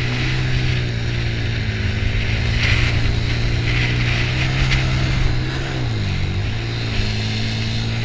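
1996 Honda TRX90 quad's small single-cylinder four-stroke engine running at a steady pace while riding, over a constant hiss. About six seconds in the revs dip briefly, then pick back up.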